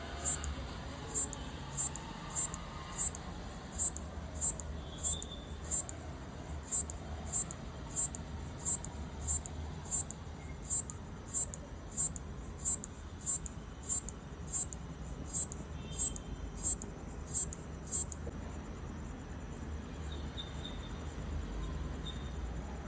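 A locust stridulating, rubbing its hind legs against its wings: short, high-pitched clicking chirps, evenly spaced at about one and a half a second, which stop about three-quarters of the way through. A call to its partner.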